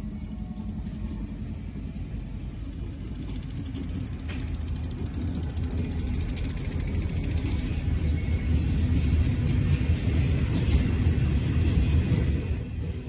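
Freight train rolling past close by: a steady low rumble of steel wheels on rail with the rattling and clanking of boxcars and covered hoppers, growing louder toward the end.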